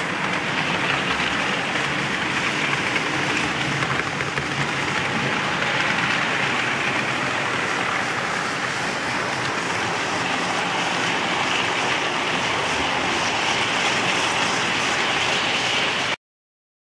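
Model trains running on a model railway layout: a steady rolling noise of wheels on the rails and running motors, which cuts off suddenly near the end.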